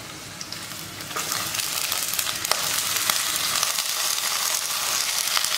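Thin raw slices of elephant foot yam going into hot oil in a clay pot, sizzling from about a second in with a dense crackling hiss.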